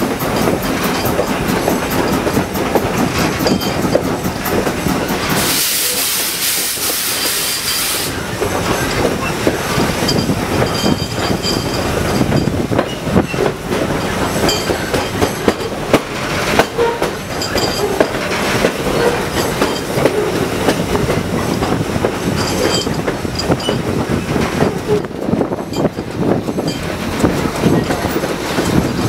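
Steam locomotive No. 90, a Baldwin 2-10-0, running along the line with a steady rumble and the wheels clacking over the rail joints. About five seconds in, a loud hiss lasts for a couple of seconds.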